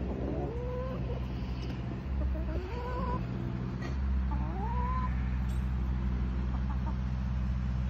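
Chickens giving three short rising calls over the steady hum of a riding mower's engine running.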